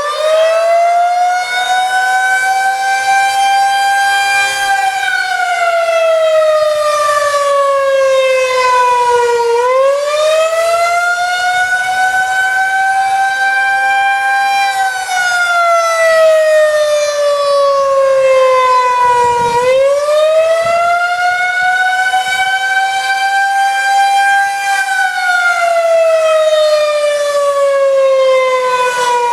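Federal Signal 2001-130 rotating single-tone outdoor warning siren sounding the attack signal: its pitch rises slowly for about five seconds and then falls for about five, a wavering cycle that repeats three times.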